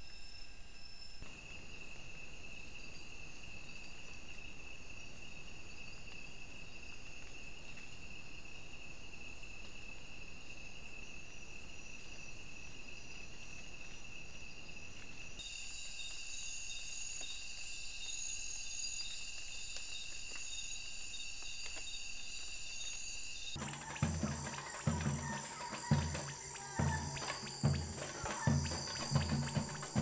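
Night-time insect chorus: steady, high-pitched trilling in several bands, whose mix changes abruptly twice. About 24 s in, music with a steady beat comes in over it and becomes the loudest sound.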